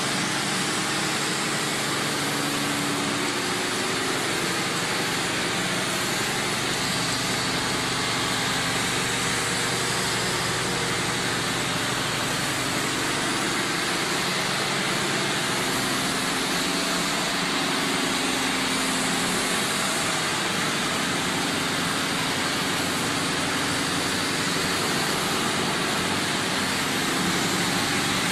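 Banana-chip production line machinery running steadily: motors, conveyors and a continuous fryer giving a constant broad hiss over a low hum.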